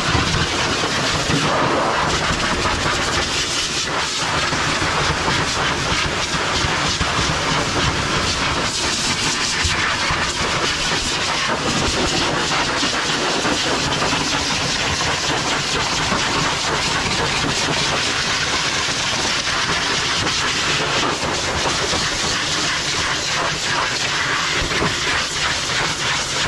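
High-velocity pet dryer blowing a loud, steady rush of air from its hose nozzle into a freshly bathed Sheltie's thick double coat, drying it and blowing out loose undercoat.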